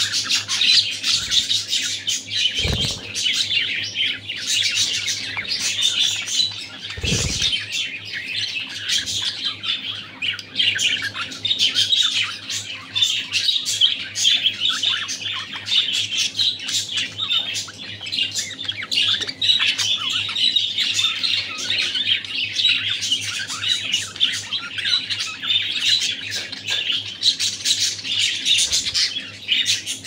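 Male budgerigars chattering and warbling without a break, a fast jumble of squeaky notes and clicks. Two dull low thumps sound a few seconds in.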